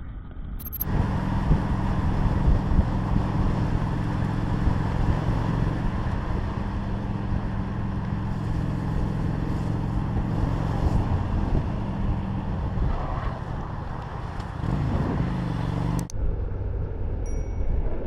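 Cruiser motorcycle engine running steadily under way, with wind and road noise over it. The engine note shifts a little about 15 seconds in, then the sound drops off abruptly about two seconds before the end.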